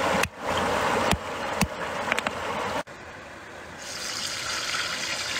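Cleaver knocking on a thick wooden chopping board as garlic cloves are crushed and chopped: a few sharp strikes over a steady rushing background. A little under three seconds in the sound cuts off suddenly and gives way to a softer hiss.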